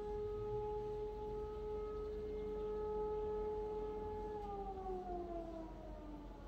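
Federal Signal Model 2 electromechanical fire siren holding a steady single tone, then winding down in pitch from about four and a half seconds in as it coasts to a stop after being switched off.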